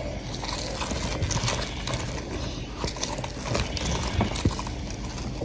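An orange being squeezed for its juice: small irregular clicks and creaks with no steady rhythm.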